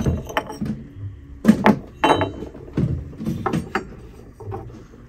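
Small porcelain flower figurines knocking and clinking against one another and a wooden shelf as they are picked up and handled: a string of sharp clicks and knocks, loudest about one and a half and two seconds in.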